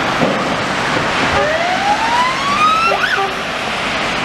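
Steady hiss of traffic on a wet road in the rain. Over it, a whine rises in pitch for about a second and a half, followed by a brief up-and-down chirp about three seconds in.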